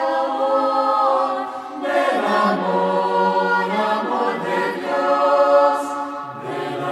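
Unaccompanied choir singing slow, sustained chords, with a lower voice part coming in near the end.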